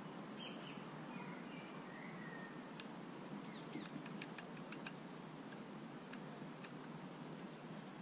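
Scattered sharp ticks from a great spotted woodpecker pecking at a wire-mesh peanut feeder. A few faint bird chirps come in the first half, over a steady outdoor hiss.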